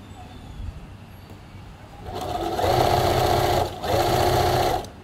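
Electric domestic sewing machine stitching a seam through pinned cotton fabric. It starts about two seconds in, runs fast and steadily, pauses briefly, runs again, and stops near the end.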